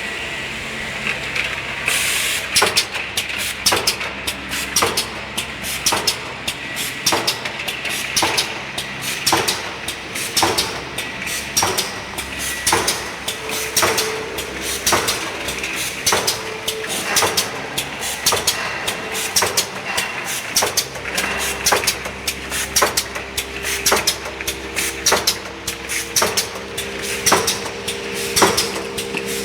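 Plastic bottle-cap slitting machine running, with a regular mechanical clack about one and a half times a second over a steady motor hum. The clacking starts about two seconds in.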